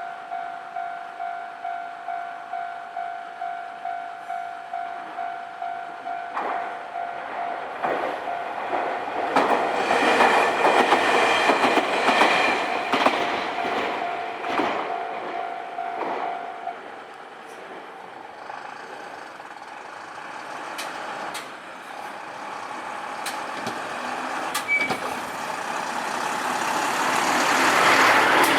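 Japanese level crossing warning bell ringing at about two strikes a second while a Nankai train passes over the crossing, its wheels clacking over the rail joints, loudest about ten to thirteen seconds in. The bell stops about seventeen seconds in, and a rising rush of another passing vehicle builds near the end.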